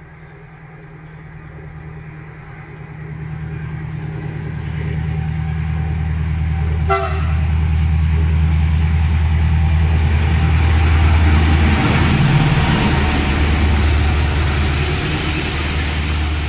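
Diesel locomotive hauling a freight train approaching and passing through a station, its engine drone growing louder. It gives a short horn toot about seven seconds in, then the rumble of the train on the rails swells.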